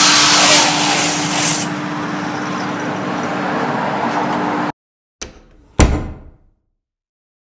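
A steady noisy background with a constant hum, like a motor running, cuts off abruptly. It is followed by two short outro sound effects, a light click and then a louder hit that rings out briefly, timed to a subscribe button being pressed and a bell icon.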